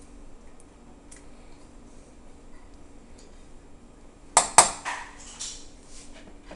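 A spoon stirring thick tomato sauce quietly in a stainless steel saucepan, then, about four seconds in, two sharp taps of the spoon against the pot's metal rim in quick succession, with a brief clatter after them.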